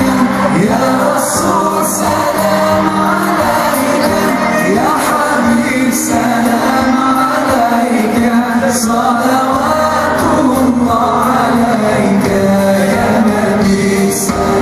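Live band music with a male singer singing a melody into a microphone, and an end-blown cane flute playing with him. It is loud and continuous.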